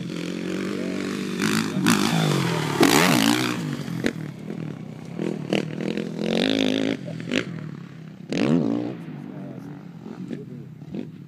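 Suzuki RM-Z single-cylinder four-stroke motocross bike revving hard on a dirt track, its engine note climbing and dropping repeatedly through the gears. It is loudest about three seconds in, surges again twice, then falls back as it rides off.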